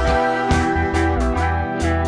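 Music: a guitar track over a heavy, sustained bass line, with notes struck at a regular pace.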